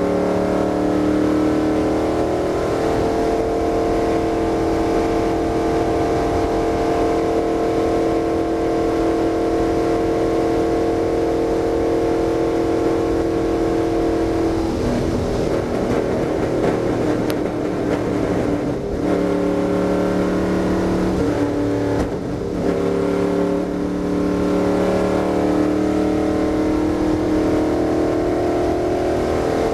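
Stock car's V8 engine running hard at high revs, heard from inside the car. The engine note holds steady, turns rough and uneven about halfway through, then settles at a lower pitch and climbs again near the end.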